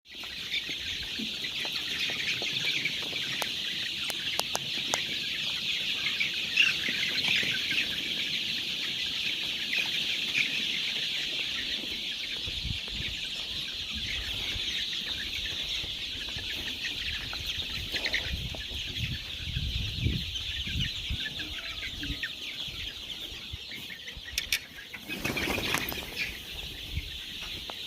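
A flock of month-old cockerels chirping and clucking all together in a dense, continuous chatter, with some low bumps and rustling in the second half.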